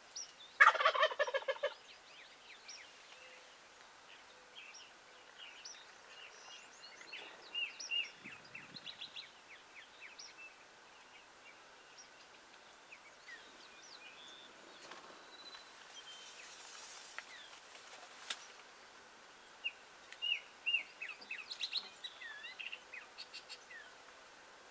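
A wild turkey gobbles once near the start: a loud, rapid rattling call about a second long. Small birds chirp here and there afterwards, busier near the end.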